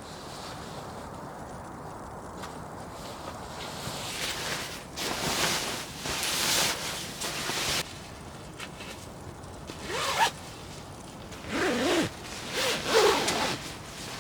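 A zipper being pulled: one long rasping pull about five seconds in, then several shorter pulls near the end.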